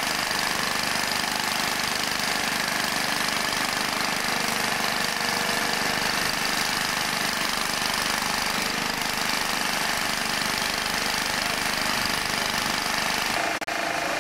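Excavator's diesel engine running steadily with a knocking clatter, cutting out briefly near the end.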